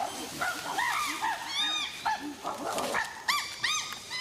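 A group of chimpanzees calling excitedly: many short, overlapping calls that rise and fall in pitch, typical of chimps worked up over finding ripe fruit.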